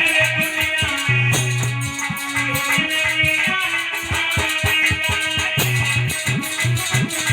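Instrumental music with no singing: a plucked-string lead like an electric guitar over held bass notes and a quick steady beat.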